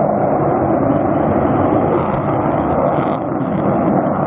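Jet noise of an F-35 Lightning II's single Pratt & Whitney F135 afterburning turbofan in display flight: a loud, steady roar that dips slightly for a moment about three seconds in.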